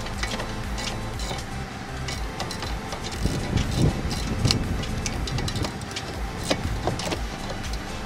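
Irregular metal clicks and knocks from a brake caliper wind-back tool being turned against a rear caliper piston, over a steady low rumble.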